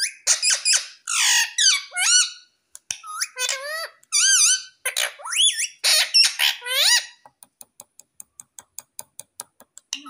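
Indian ringneck parakeet giving a string of loud, high squawks and chattering calls that slide up and down in pitch, followed near the end by a run of faint quick clicks.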